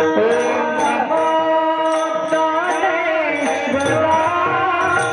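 Marathi devotional kirtan music: a sung line that bends and ornaments over steady held harmonium notes, with small hand cymbals (taal) striking about three times a second.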